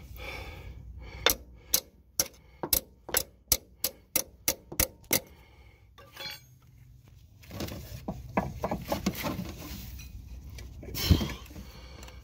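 Metal-on-metal work on an old transaxle axle seal with a flat steel pry bar: a run of about eleven sharp taps at roughly two to three a second, then a cluster of quicker clinks and scrapes, and one heavier knock near the end, the loudest sound.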